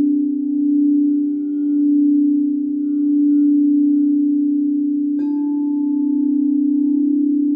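Crystal singing bowls ringing with low, sustained tones that swell and fade slowly. About five seconds in, a mallet strikes a bowl and a higher note joins and rings on.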